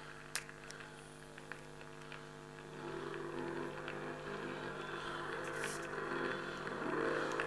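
Vinyl record playing on a record player: crackle and sharp surface clicks from the lead-in groove over a steady low hum. About three seconds in, the record's instrumental intro music comes in faintly and grows louder.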